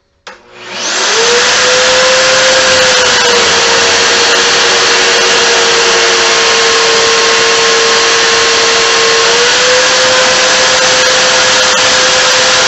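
Milwaukee magnetic drill press starting up and running steadily while drilling a 27/64-inch tap-drill hole in the steel bench top with a stubby bit. The motor spins up within the first second, then holds a steady whine whose pitch drops slightly about three seconds in and comes back up near the end.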